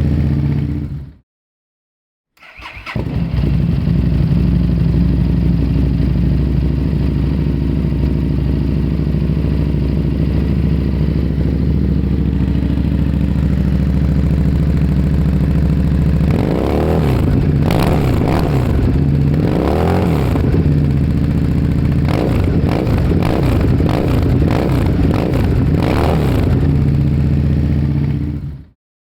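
Harley-Davidson Street Rod V-twin idling steadily through its exhaust, cut off briefly near the start and back a second later. About halfway through the throttle is blipped several times, each rev rising and falling, before it settles back to idle and fades out near the end.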